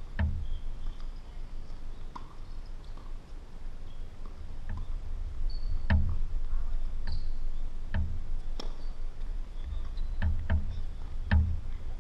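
Tennis balls being struck with rackets and bouncing on the court: sharp knocks, each with a dull low thud, at irregular gaps of a second or two.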